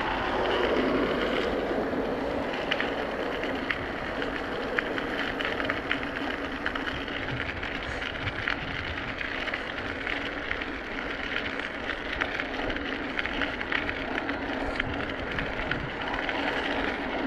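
Wind buffeting the microphone of a bike-mounted camera, with tyre noise from a bicycle rolling on asphalt and scattered light ticks.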